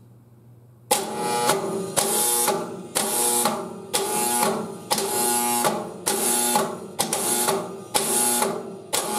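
The solenoid of a Federal Thunderbolt 1003A siren being switched on and off by hand, about twice a second, starting about a second in. Each switching is a sharp clack followed by a short buzz.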